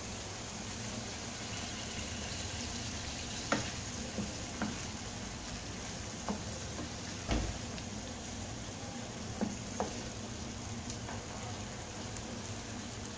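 Tomato and pepper sauce with beaten egg cooking in a frying pan with a steady sizzle. A wooden spatula stirring it knocks lightly against the pan several times.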